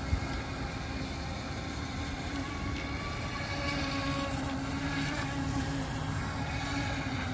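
Radio-controlled speedboat's motor running at speed with a steady whine that shifts slightly in pitch as the boat turns.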